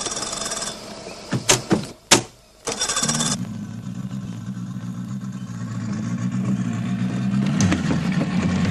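Outboard motor on a small speedboat starting: a few sharp knocks, then the engine catches about three seconds in and runs steadily, growing louder near the end.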